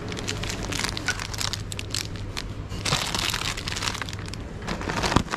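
Plastic snack wrapper crinkling and crackling as it is handled, densest about three seconds in, with one sharp tap near the end.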